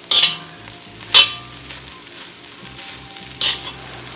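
Metal slotted spoon stirring rice through fried chicken in a wok, with three sharp scrapes against the pan: at the start, about a second in and near the end. A faint sizzle runs underneath.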